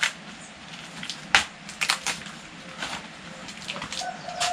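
Fresh green corn husks being torn and stripped from the ears by hand: a rustling noise broken by about half a dozen sharp, irregular snaps and tears.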